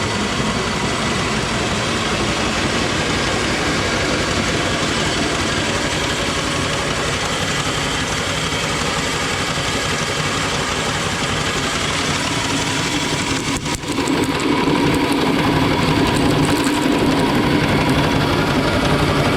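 An eighty-year-old bulgur mill runs steadily, grinding cracked wheat with a continuous mechanical drone. About three-quarters of the way through the sound dips briefly, then carries on with a changed, fuller tone.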